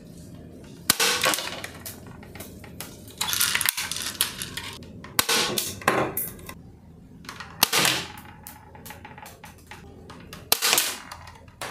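A bolt-action toy M40 sniper rifle being cocked and fired several times: sharp plastic snaps and clacks a couple of seconds apart. The pellets hit small plastic action figures and knock them over.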